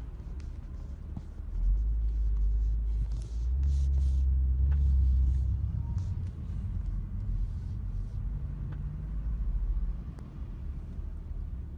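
Low, steady rumble of engines and slow road traffic heard from inside a car's cabin, growing louder for a few seconds about two seconds in before settling again.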